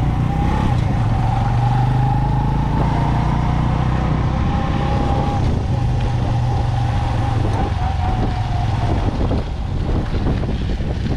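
Motor vehicle engine running steadily: a strong low drone with a faint whining tone above it. It eases off for a moment about nine seconds in.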